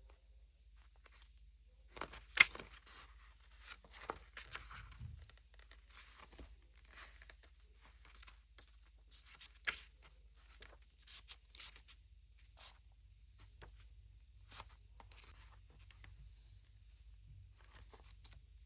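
Packaging being handled and torn open by hand: scattered rustles and crackles, with a sharp click about two seconds in and another near ten seconds.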